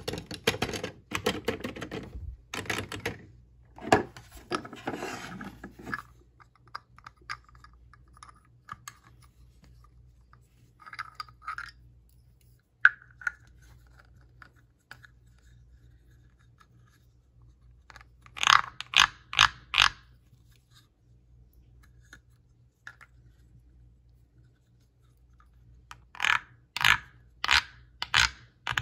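Wooden frog guiro, a stick scraped along the ridged back, giving rasping croaks in bursts. There are several strokes at the start, then four quick strokes about two-thirds through and about six more near the end, with fainter scrapes in between.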